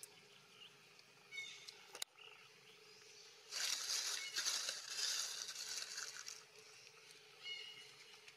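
Rustling of dry leaves and grass close by as a baby long-tailed macaque rummages through the ground litter, loudest for about three seconds in the middle. Short high chirps come twice, once early and once near the end, with a single click between them.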